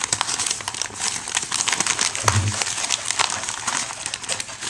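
Plastic mailing envelope crinkling and crackling as it is pulled open and handled by hand, with many short sharp crackles.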